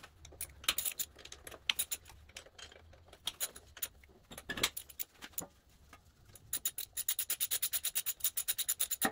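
Socket ratchet loosening cylinder head bolts on a Briggs & Stratton riding-mower engine, with scattered metal clinks and taps. About six and a half seconds in comes a fast, even run of ratchet clicks, about ten a second.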